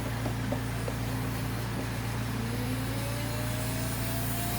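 Steady running noise from compressed-air dryer vent cleaning equipment, with a constant low hum. A faint tone slowly rises in pitch from a little after halfway through.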